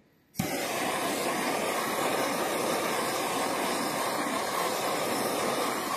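Handheld gas torch flame burning with a steady hiss, annealing a thin aluminum can sheet to make it more formable. The hiss starts abruptly about half a second in, after a brief silence.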